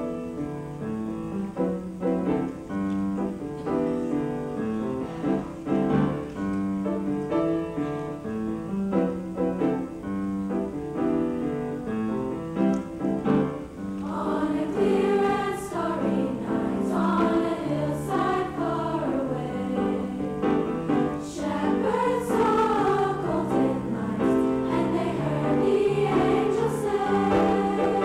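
A women's choir singing with piano accompaniment; the first half is a quieter piano introduction of held chords, and the voices come in, louder, about halfway through.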